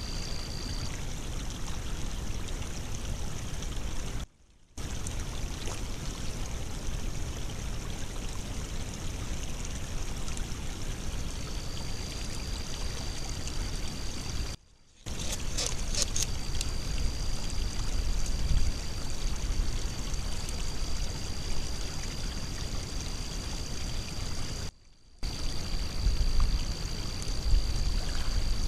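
Water running steadily through a breached beaver dam, a constant rushing trickle with a thin high tone over it in places. It drops to near silence for about half a second three times.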